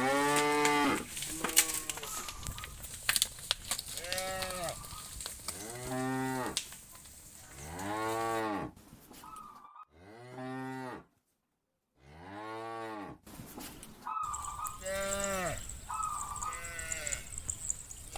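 A herd of cattle mooing, one long rising-then-falling moo after another, roughly every two seconds. Short higher calls come in between now and then.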